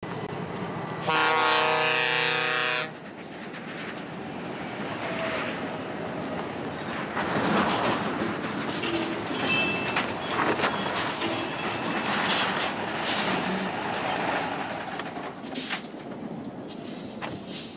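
A truck's air horn sounds one long, deep blast about a second in, lasting nearly two seconds. It is followed by a heavy truck running and its tyres rolling over gravel.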